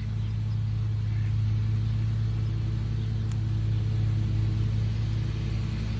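A machine running with a steady low hum that holds the same pitch throughout.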